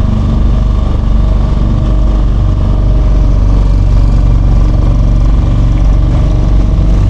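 A small hired motorboat's engine running steadily at a constant speed, heard close up.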